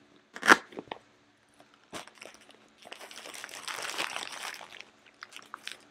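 A sharp knock about half a second in, then a clear plastic bag crinkling as it is handled and lifted out of a cardboard box, loudest around four seconds in.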